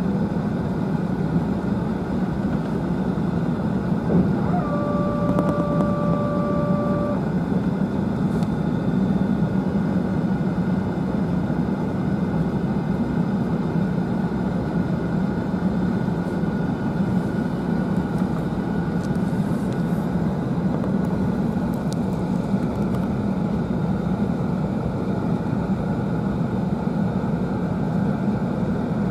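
Steady cabin rumble of an Airbus A380 on the ground after landing, its Rolls-Royce Trent 900 engines at idle. About five seconds in, a steady tone sounds for a couple of seconds.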